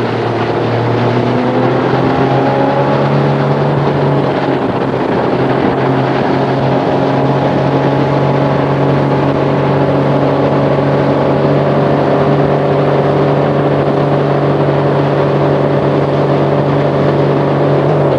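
Tow boat's engine running steadily under way, one nearly constant engine note, over the rush of spray and wind.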